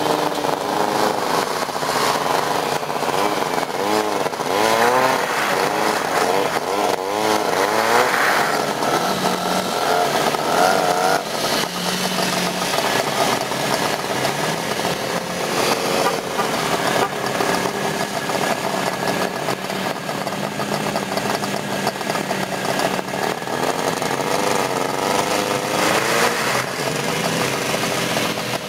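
Several vintage snowmobile engines running together, their pitch rising and falling as the sleds are revved and pull away. A burst of revving comes again near the end.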